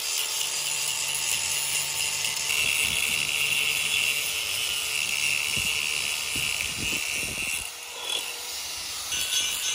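A tool working metal, making a steady rasping, rubbing noise, with a few low knocks about two-thirds of the way through and a brief lull after them.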